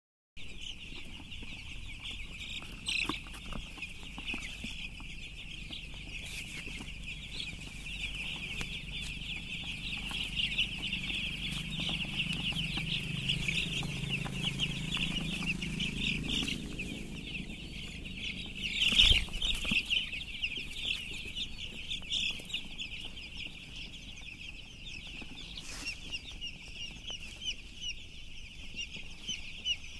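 A large flock of broiler chicks peeping constantly, a dense chorus of high, overlapping chirps. A single sharp knock about nineteen seconds in.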